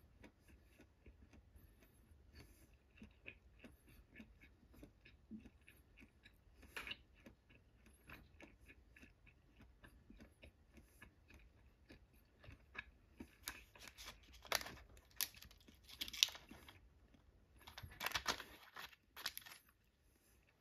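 Someone chewing food close to the microphone, with soft wet mouth clicks. In the second half come louder crinkling bursts from a thin clear plastic food film being lifted out of the sushi box with chopsticks.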